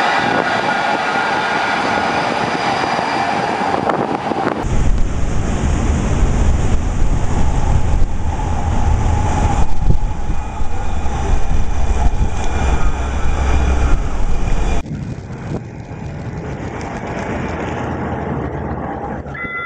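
Houston METRO light-rail tram running past at close range, its drive whining in steady tones. After a cut about four and a half seconds in, a heavy low rumble takes over, and after another cut about fifteen seconds in the sound drops to a quieter, even hiss.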